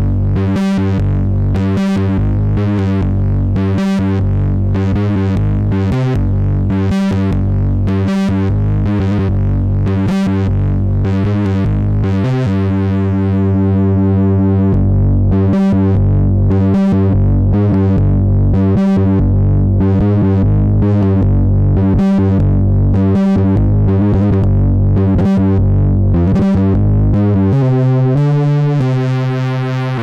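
Behringer Poly D analog synthesizer playing a distorted monophonic patch: a low, buzzy note re-struck about once a second. It gets a little louder about halfway through, and near the end the pitch drops and the tone changes.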